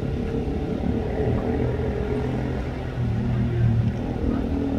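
Fast passenger ferry's engines running as it manoeuvres alongside the quay: a steady low rumble with a hum, a little louder about three seconds in.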